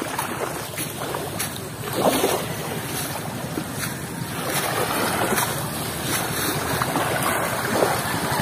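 Wind buffeting the microphone over lake water lapping against the fish cage floats, with a few brief louder swells.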